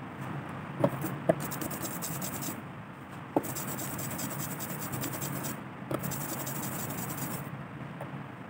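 Rubber brayer rolled back and forth through tacky block-printing ink on an inking slab: a fine crackly hiss in three spells. A few sharp knocks come in between, the first two about a second in.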